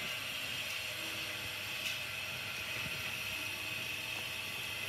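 Steady background hiss with a faint whirring hum, and a soft tick about two seconds in.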